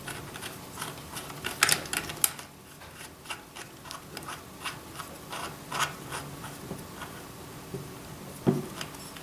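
Scattered light clicks and rubbing from fingers handling a small ATV carburetor's top cap and rubber boot, with a few sharper clicks about two seconds in and again near the end.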